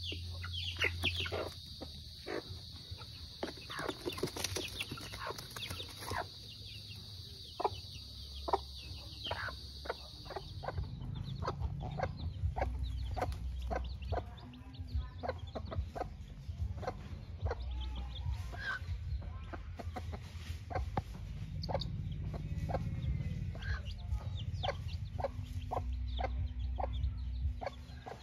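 White Kelso chickens pecking grain from a rubber feed pan: a fast, uneven run of taps. About eleven seconds in, after a cut, a hen clucking as she forages with her chicks in dry leaves.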